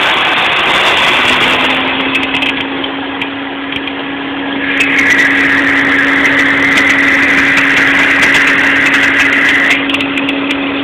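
Volvo 850 five-cylinder engine running with a failing accessory-belt idler pulley: a steady whine sets in about a second in, and a louder, higher squeal runs from about five seconds in until shortly before the end.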